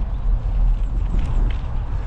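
Bicycle riding on a gravel trail: heavy wind rumble on the microphone over the crunch of knobbly tyres rolling on loose gravel, with a few small clicks of stones.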